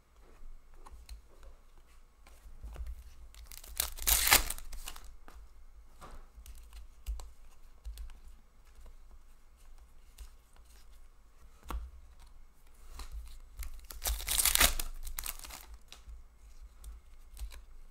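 Trading card pack wrappers torn open by hand, two rips about ten seconds apart, each lasting about a second. Soft clicks and shuffling of cards being handled between them.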